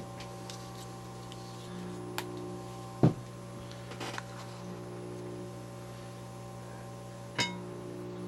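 Steady electrical hum, with a few light clicks and knocks as the board and tools are handled: the loudest about three seconds in, another near the end.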